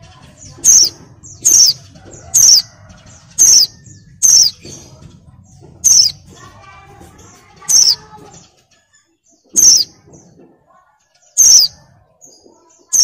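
Female white-eye (pleci) in breeding condition calling: about ten short, sharp notes, each falling in pitch, at first about once a second and then further apart. It is the female's call that draws males into song.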